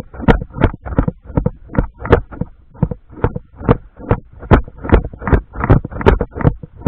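Brisk footsteps heard close up, about two and a half steps a second, each a thump with a rustle.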